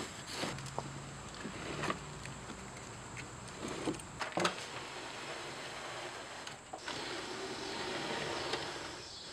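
Plywood sliding door being pushed along its wooden track by hand, wood scraping on wood in two long slides, with a few light knocks as it shifts in the runner.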